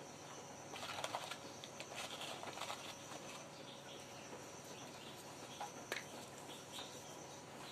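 Faint rustling and crackling of towels being handled in a plastic basin in the first few seconds, then baking soda sprinkled over them with a single light tap about six seconds in.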